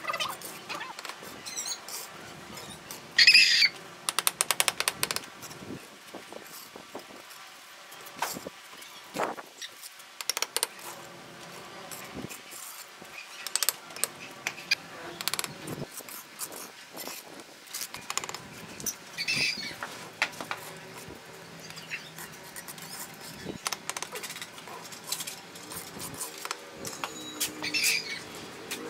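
Steel trowel tapping red bricks down into wet mortar and scraping mortar along the courses. It makes scattered sharp taps and knocks, with a quick run of taps about three seconds in.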